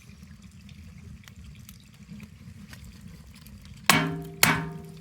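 Two sharp metallic clanks about half a second apart near the end, each ringing briefly, over a low steady background hiss.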